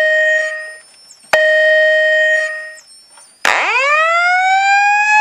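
Two Wheelock ET-1010-WS-24 fire alarm speakers sounding an evacuation signal. There are two long, steady, loud tones, each about a second and a half, and then a tone that sweeps sharply upward and levels off into a slow rise.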